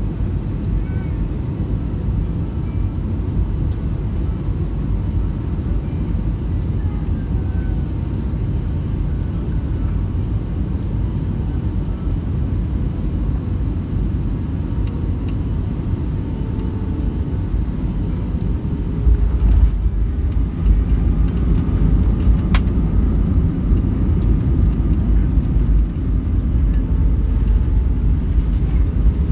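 Airbus A320 jet cabin noise, a steady low rumble on final approach. About two-thirds of the way through, the wheels touch down and the rumble grows louder with rattles and clicks as the airliner rolls out on the runway.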